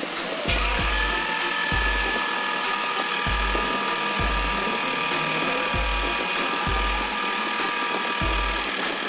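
Electric stand mixer's motor starting about half a second in and running with a steady whine as its beaters work butter chunks into flour and salt for pie dough. Background music with a steady bass beat plays under it.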